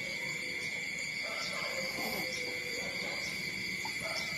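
Steady, high-pitched chirring of insects, unbroken throughout, with a few faint, short squeaks from the nursing newborn puppies.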